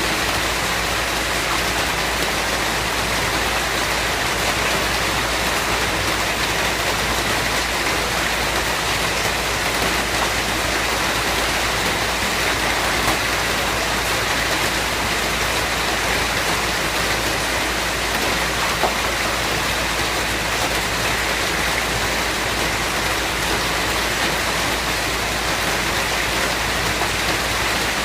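Steady rainfall, an even hiss with faint scattered drop ticks.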